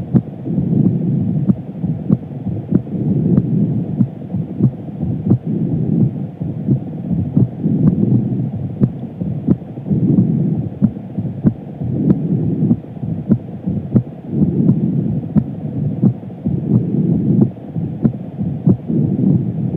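A woman's heartbeat heard through a stethoscope: steady, regular beats, over a low rushing noise that swells and fades every two seconds or so.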